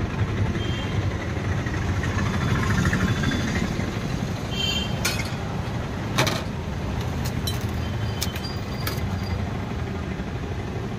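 Road traffic noise: a steady low rumble of vehicle engines, with a few short sharp clicks and knocks about halfway through.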